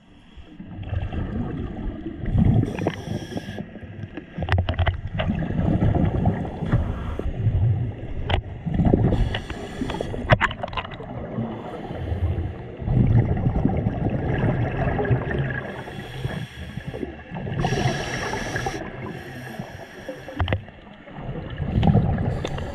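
Underwater dive audio: a muffled low rumble, broken by bursts of exhaled bubbles rushing past every six or seven seconds, with scattered sharp clicks.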